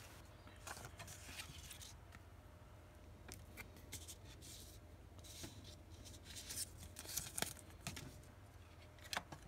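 Faint rustling, scraping and light taps of trading cards and a cardboard card box being handled on a desk, scattered through, with a small cluster about seven seconds in and a sharper tap near the end.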